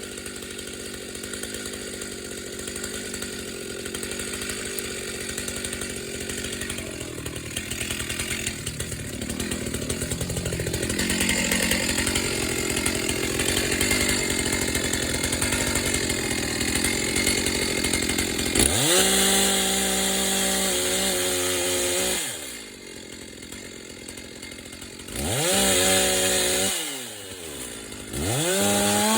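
Chainsaw cutting into a dead wattle trunk, the engine held steady under load and slowly getting louder; about two-thirds through it comes free and is revved high for a few seconds, then blipped twice more with idling between.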